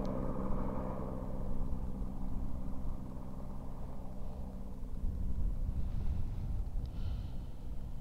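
Helicopter flying away, its steady pitched drone strongest at first and fading over the next few seconds, over a low rumble.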